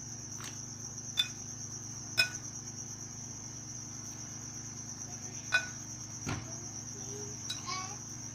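Metal potato masher pressing boiled potatoes in a glass bowl, clinking sharply against the glass three times with a brief ring, plus a duller knock near the end. A steady high-pitched whine runs underneath.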